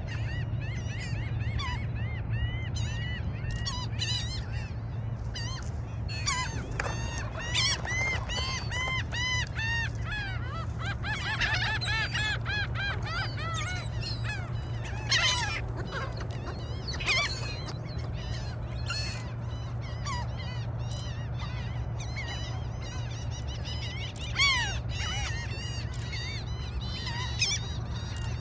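A flock of seagulls calling, many short arching calls overlapping, with a few louder single calls standing out, over a steady low hum.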